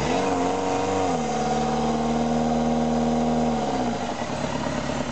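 Engine of a small off-road 4x4 revved hard as it tries to climb out of a muddy ditch. It is held at steady high revs for a couple of seconds, then drops back toward idle near the end.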